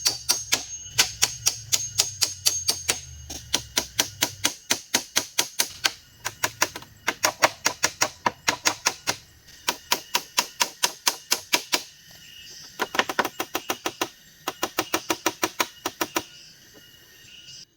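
A rapid series of sharp taps, about five a second, in runs of a few seconds broken by short pauses.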